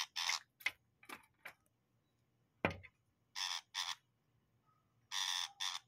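Brown shrike giving short, harsh rasping calls close to the microphone, in scattered groups with a quiet stretch in the middle and a quick run of calls near the end. One sharp knock a little under three seconds in.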